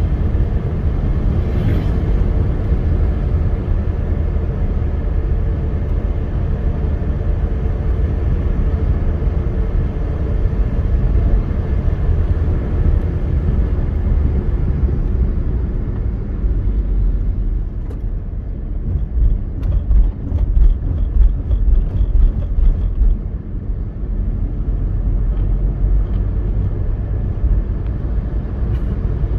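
Steady low rumble of a car's engine and tyres at road speed, heard from inside the cabin. For a few seconds about twenty seconds in, the rumble turns uneven and a rapid ticking comes in.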